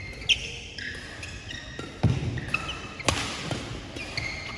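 Badminton rally: several sharp cracks of rackets hitting the shuttlecock, the loudest about two and three seconds in, among short high squeaks of shoes on the court floor.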